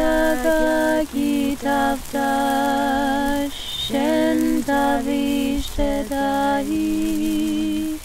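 Several voices singing a slow, unaccompanied song in Georgian in harmony, in long held notes with short breaths between phrases.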